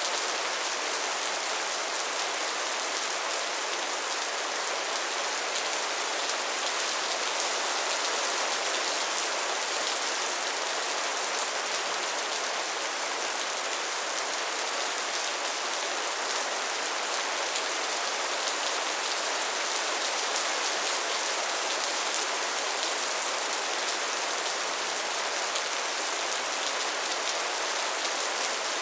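Steady soft rain falling, an even hiss of many small drops pattering on a surface, with no thunder.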